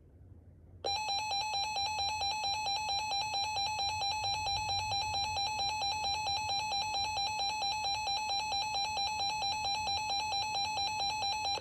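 Emergency Alert System attention signal: a loud, steady electronic alert tone with a fast, regular warble, starting about a second in. It signals that an emergency warning is about to be read.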